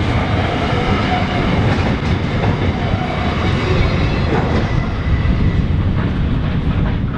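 Container freight wagons rolling past on steel wheels. The last wagon clears partway through, and the rumble of the train carries on as it moves away.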